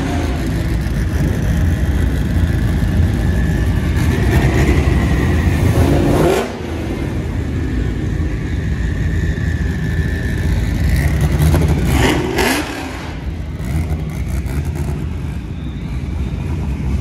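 Loud engine rumble from show vehicles, with an engine revved up hard twice: a rising rev about six seconds in and another about twelve seconds in, each dropping off sharply.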